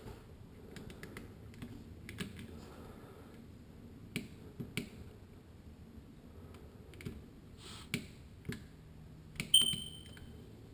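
Clicks and taps of thermostat buttons and switches being pressed, with one short electronic beep from the thermostat near the end. No fan or blower starts up in response: the system is not answering the thermostat.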